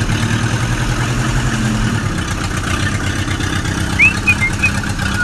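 Tractor engine running steadily at idle, with a few short high bird chirps about four seconds in.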